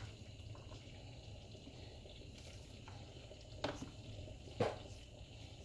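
Low, steady rumble of a gas burner under a frying pan of heating vegetable oil, with a few light knocks, the clearest two about a second apart past the middle.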